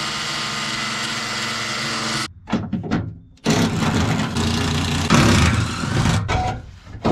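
A band file (belt file) running at a steady pitch for about two seconds as it sands out spot welds on the car's rear quarter panel. After a short pause a Milwaukee cordless driver runs, louder and rougher, for about three seconds on bolts in the trunk floor.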